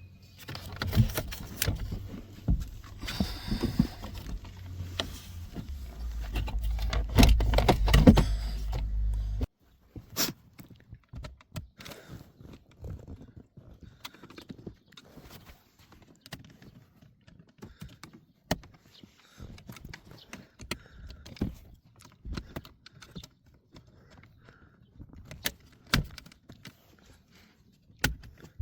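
Plastic gear-shift indicator cover being worked loose with a small flat-head screwdriver, releasing its clip tabs. For the first ten seconds or so there is loud scraping and handling noise with a low rumble, which cuts off suddenly. After that come scattered clicks and taps of plastic.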